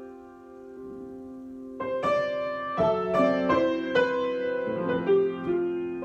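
Solo piano improvisation. A held chord fades for about two seconds, then a string of notes and chords is struck and left ringing into a sustained chord near the end.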